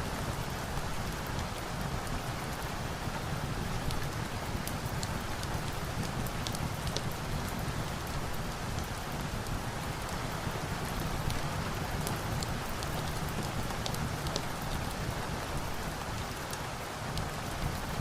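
Steady heavy rain falling, an even hiss with scattered sharp ticks of individual drops.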